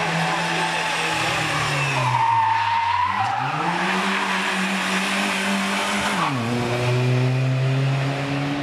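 Rally car engine revving hard on a tarmac street stage, with a short tyre squeal about two seconds in as the car slides through a corner. The engine pitch dips, climbs and holds high, then drops sharply about six seconds in and runs on steadily.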